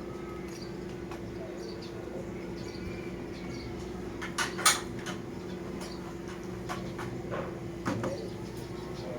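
A steady electrical hum with a few sharp clicks and knocks, the loudest about four and a half seconds in and another near the end, like plastic parts being handled.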